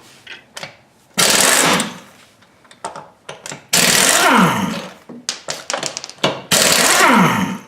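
Impact wrench spinning off the wheel's lug nuts: three short loud hammering bursts, the last two followed by a falling whine as the tool spins down, with light clicks between.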